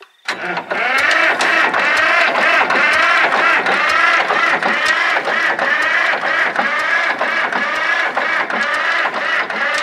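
Supercharged Cummins diesel tractor engine being cranked by its electric starter, starting just after the beginning. It turns over slowly and unevenly, the sound rising and falling about twice a second with each compression; the starter is lazy and the engine does not fire, with air in the fuel.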